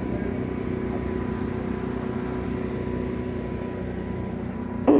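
A machine running with a steady hum of several constant tones. A loud short sound cuts in near the end.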